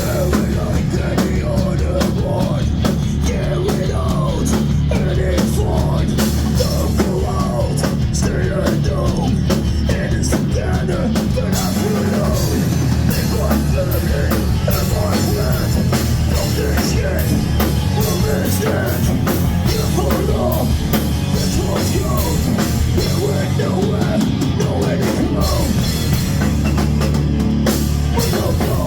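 Loud heavy rock music with a driving drum kit, played steadily throughout.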